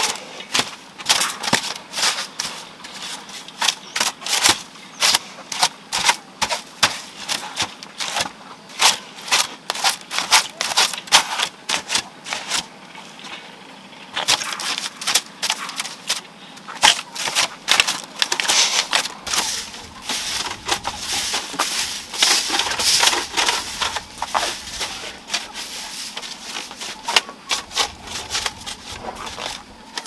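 Broom on a long pole brushing and scraping across a dry leaf-thatched roof and its bamboo rafters, sweeping down cobwebs: quick, irregular strokes of sharp rustling clicks, with a short pause near the middle.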